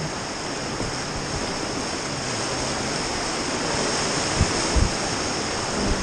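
Whitewater river rapids rushing around an inflatable raft, a steady noise of fast water that grows a little louder toward the end. Two brief low thumps come about four and a half seconds in.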